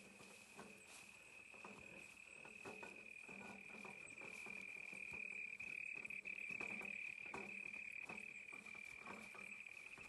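Faint, steady high-pitched insect trill that swells a little toward the middle, with soft irregular footsteps through the undergrowth.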